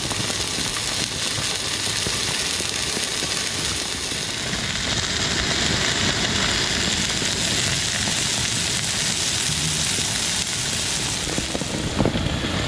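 Steak and sliced red onions sizzling in a frying pan on a gas camping stove: a steady hiss, with a few knocks of the pan near the end.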